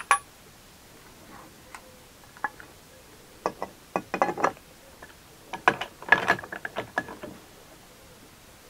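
Socket ratchet clicking in two short runs of rapid clicks, with a sharp knock at the start, as the pinion nut of an Austin A40 Farina differential is tightened a little further to raise the pinion bearing preload.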